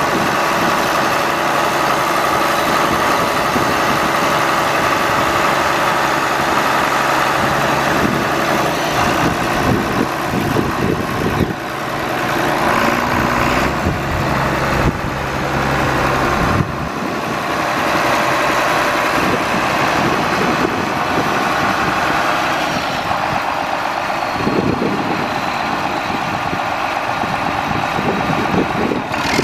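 1981 John Deere 4640 tractor's six-cylinder turbo diesel engine running steadily at idle, with the sound changing abruptly twice, about 11 and 17 seconds in.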